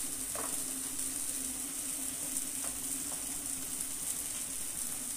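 Onion-tomato masala frying in oil in a nonstick kadai: a steady sizzling hiss with a few faint ticks, over a low steady hum.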